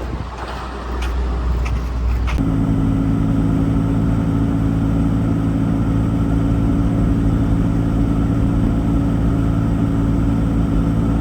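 A few clicks and knocks, then about two seconds in an engine starts abruptly and keeps running at a steady speed, a constant low hum.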